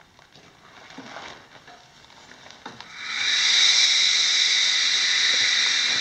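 Steady hiss of air escaping from the cylinder of a 1912 Fairbanks-Morse 15 hp hit-and-miss engine as its flywheel is rolled slowly over by hand through the compression stroke. It starts about halfway through after a few soft knocks and holds steady.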